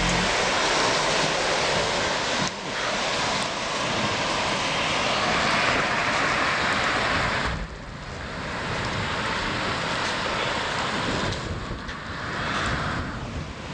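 Steady rushing noise of storm water, heavy rain and running floodwater, changing abruptly about two and a half and eight seconds in.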